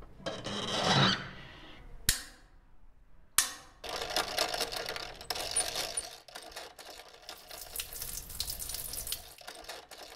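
Sound effects: a falling whoosh, then two sharp clicks, then a long run of dense crackling and clicking.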